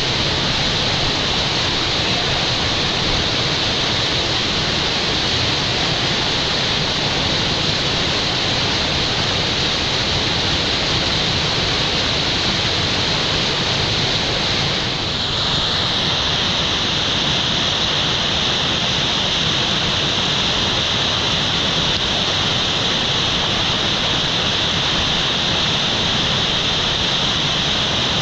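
Whitewater rushing steadily through a river play hole, loud and even, with a brief dip about halfway through.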